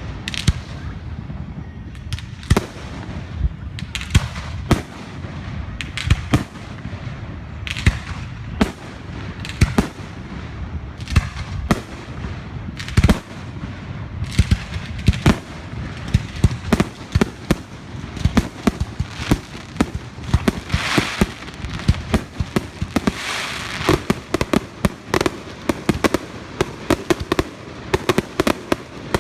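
Fireworks going off: a continual run of sharp, irregular bangs and pops, with stretches of crackling in the later part.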